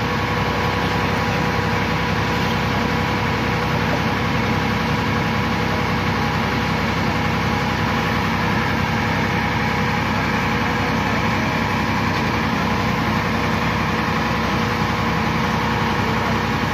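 Sonalika RX 50 tractor's diesel engine running steadily at a constant speed.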